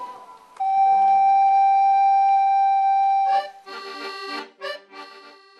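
Piano accordion music: one long held note for about three seconds, then a run of shorter notes and chords that fade toward the end. A recorder note ends just as it begins.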